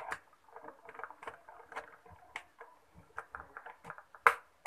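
Screwdriver backing out the screws of a plastic blender base: irregular small clicks and scrapes of the tool in the screw head and against the plastic housing, with one sharper click near the end.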